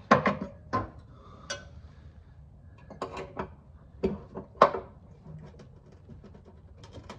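Steel oil pan of a Subaru Forester engine clanking and knocking as a screwdriver pries and works it loose from the block. The sharp metal clanks are irregular, loudest at the very start and again about four and a half seconds in, with lighter ticks and scrapes between.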